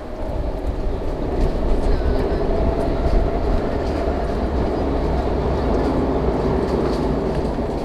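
A train passing close by, a loud steady rumble with faint clicks from the wheels on the rails, fading away near the end.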